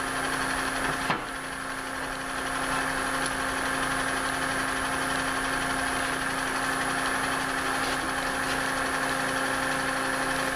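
Powermatic 3520 wood lathe spinning a walnut bowl held on a vacuum chuck, with the vacuum pump running: a steady mechanical hum. A single knock about a second in, as the steel tool rest is set into its holder.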